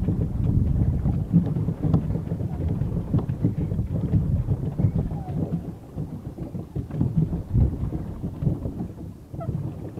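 Wind buffeting a phone's microphone in an uneven low rumble on open water, with small knocks and taps from the phone being handled.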